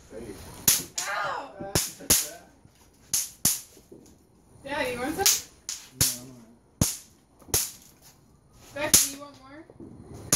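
Bang snaps (snap pops) cracking on a tile floor as they are thrown, about ten sharp pops at uneven intervals, with voices and laughter in between.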